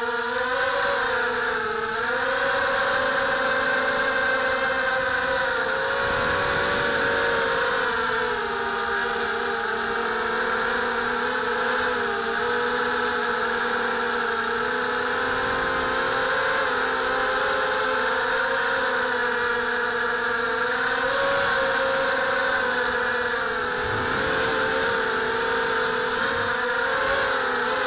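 Brushless motors and propellers of a 250-size FPV racing quadcopter, heard close up from its onboard camera: a steady whine of several stacked tones that drifts slightly up and down in pitch with the throttle.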